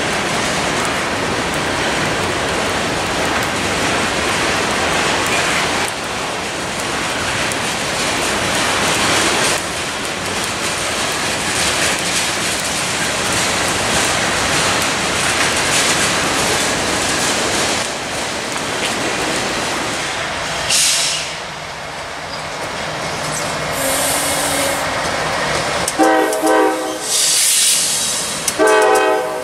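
Steady rumble and wheel noise of a freight train rolling past, then near the end a diesel freight locomotive's horn sounds two blasts.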